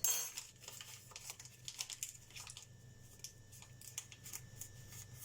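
Faint scattered clicks and light rustling of a spoon and packaging being handled as baking powder is added to the dry dough mixture.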